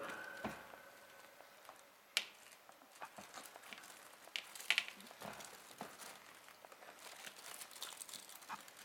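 Kittens at play: scattered light taps, scrapes and crinkling, with a few sharper clicks about two and five seconds in.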